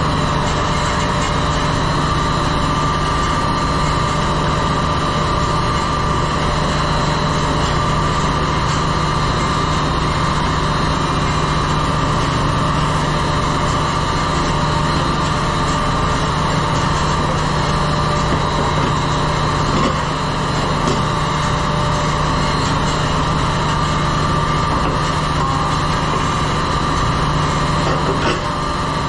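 Ship's engine-room machinery running steadily and loudly: a constant low hum with a thin, steady whine above it.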